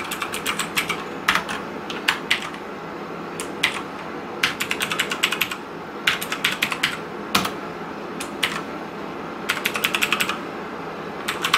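Mechanical keyboard with clicky blue switches being typed on in quick runs of keystrokes with short pauses between them, each key giving a sharp click.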